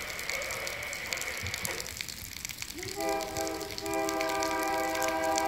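GE AC4400 diesel locomotive's multi-chime air horn, sounding a long chord that starts about three seconds in with a brief rising onset and then holds steady.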